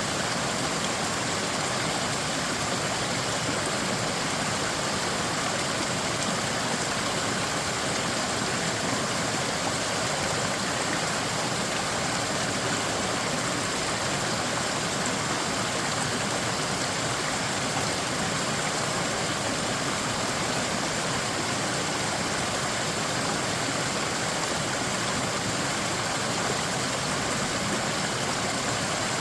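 Creek in flood, its high water rushing past in a steady, unbroken wash of noise.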